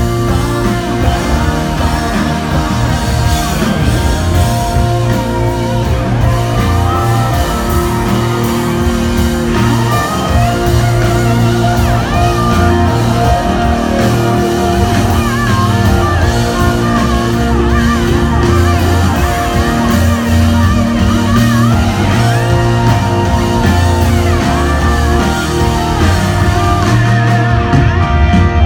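Live band music amplified through a concert PA, with electric guitar prominent in a country-rock song.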